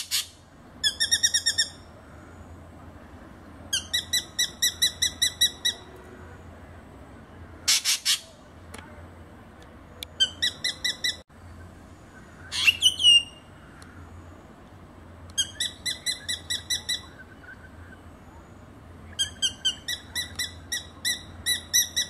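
Drongo calling: several runs of quick, ringing repeated notes a few seconds apart, broken by a few louder, harsh calls, one of them sweeping up and down.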